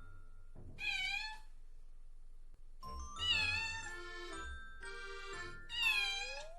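Kitten meowing three times, short high-pitched calls, about a second in, around three seconds in and near the end, over light chiming background music.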